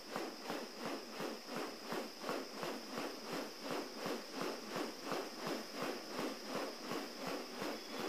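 Male riflebird's courtship display: its stiff wing feathers swish in an even rhythm, about three a second.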